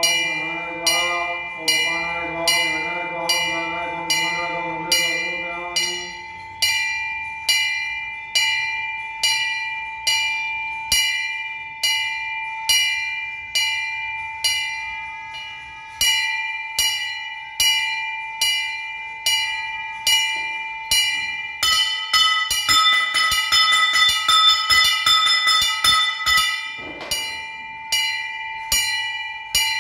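Temple bell struck at a steady pace, a little more than once a second, each strike ringing on into the next. For about five seconds, starting some eight seconds before the end, a second, brighter bell is rung rapidly over it. Over the first six seconds a voice holds a long note beneath the bell.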